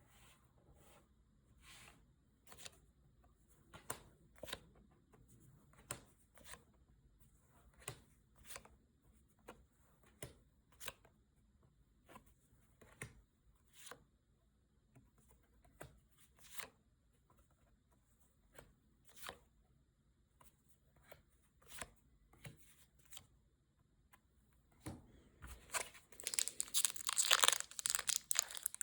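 Scattered soft clicks of Pokémon cards being handled, about one a second. Near the end comes loud crinkling and tearing of a foil booster pack wrapper being opened.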